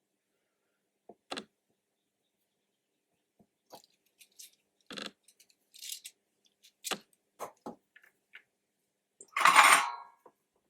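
Small clicks and taps from tools and wires being handled during soldering, scattered irregularly, then one louder scraping, rustling noise lasting under a second about nine seconds in.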